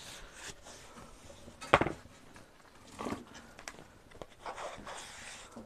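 Plastic bowls being handled: one is set down on a table with a sharp knock about two seconds in, followed by a smaller knock and a few light clicks and rustles.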